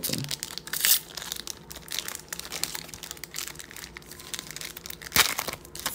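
Foil trading-card pack crinkling and crackling as fingers work at its sealed end, with a loud sharp rip about five seconds in as it finally tears open.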